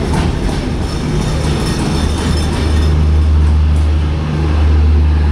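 Bangladesh Railway intercity passenger coaches rolling past a departing train on the station platform: a steady low rumble with faint clacks of the wheels, louder from about halfway through.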